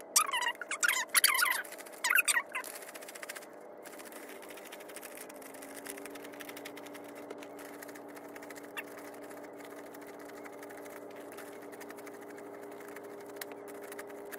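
Paper banknotes flicking and rustling as a stack of dollar bills is counted by hand. A few loud voice sounds come in the first couple of seconds, and a steady low hum comes in about five seconds in.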